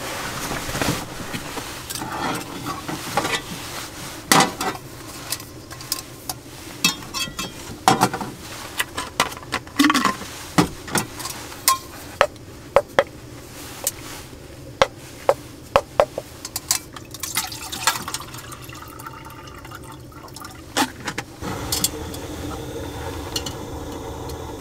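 Small metal camping cookware being handled: a canister and mug clinking and knocking, with many scattered sharp clicks and a few short ringing taps.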